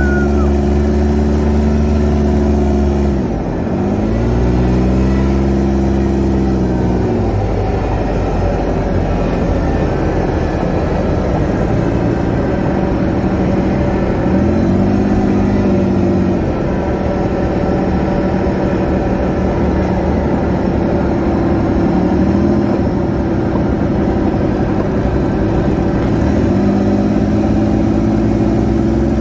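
Off-road side-by-side buggy engine heard from on board while driving, under a steady rush of wind and road noise. The engine pitch drops and climbs back up as the throttle is eased and reapplied, about three seconds in, around the middle, and twice near the end.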